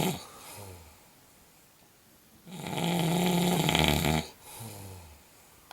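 A woman snoring heavily in her sleep: one loud snore about a second and a half long in the middle, with short, fainter snores before and after it.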